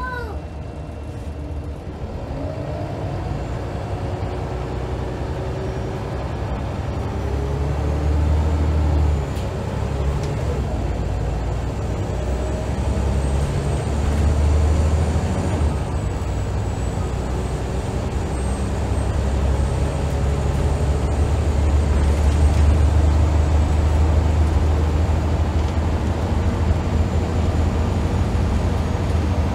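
Scania L94UB single-deck bus engine heard from inside the saloon, working hard as the bus drives on: a deep drone whose revs climb and drop back several times as it goes up through the gears. A faint high whine runs above it through most of the stretch.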